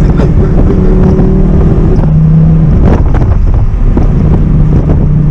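Audi R8's V10 engine running under way. Its note steps down in pitch about two seconds in, breaks up briefly around three seconds, then holds a steady lower drone.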